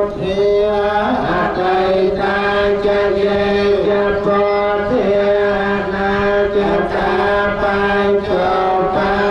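Buddhist monks chanting a Pali blessing together, several voices holding long, steady notes in a low drone.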